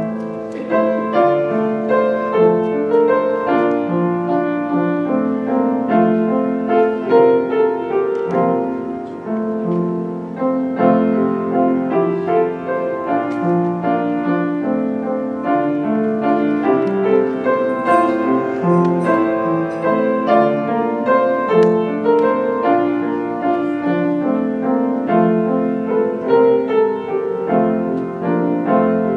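Piano playing offertory music, a continuous flow of notes and chords.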